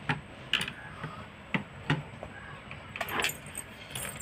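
Several light, separate clicks and taps from a steel spoon, a steel bowl and a plastic sippy cup being handled during spoon-feeding.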